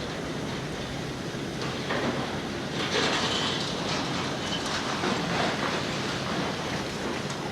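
Demolition excavator dragging debris out of a building: a steady din of grinding and clattering, with louder crashes about two and three seconds in and brief metal squeals.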